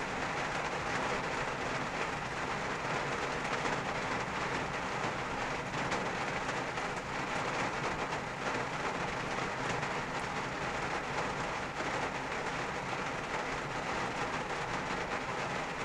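Steady rain falling on a car's roof and windshield, heard from inside the cabin as an even patter with faint scattered drop taps.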